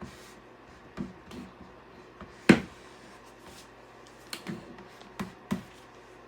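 Scattered light knocks and clicks, the loudest about two and a half seconds in, as a plastic Bondo spreader works oil into a wooden cutting board.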